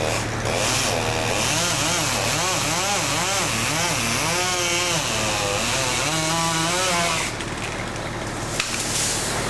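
Chainsaw running, its engine pitch rising and falling over and over as it is throttled, then easing off about seven seconds in. A steady low hum runs underneath.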